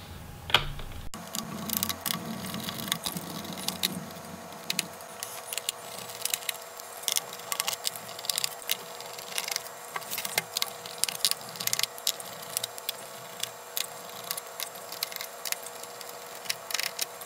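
Small Phillips screwdriver and tiny screws clicking, tapping and rattling against a laptop's plastic bottom case as the case screws are backed out and set down, in a fast, irregular run of sharp clicks.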